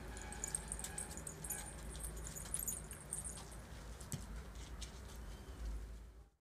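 Metal spatula clinking against a metal cooking pot, with a light jingle of bangles during the first half, over a steady low rumble. The sound cuts off near the end.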